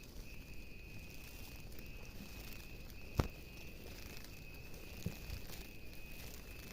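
An insect calling with a steady, unbroken high-pitched tone, with a sharp click about three seconds in.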